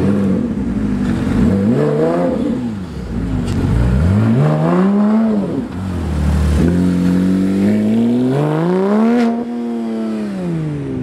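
High-performance sports car engines revving hard as cars accelerate past, the revs climbing and dropping about four times, with one sharp pop near the end.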